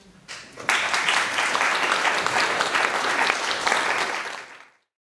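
An audience applauding, building up within the first second, then cut off by a quick fade shortly before the end.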